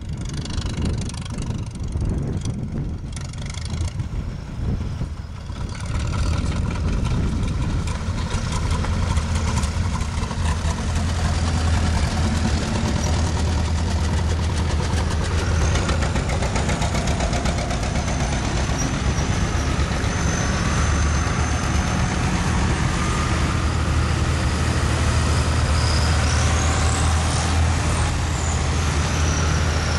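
Farm tractor engines running as a procession of tractors drives past, a steady low drone that grows louder about a quarter of the way in and holds. Near the end a thin high whine rises and falls.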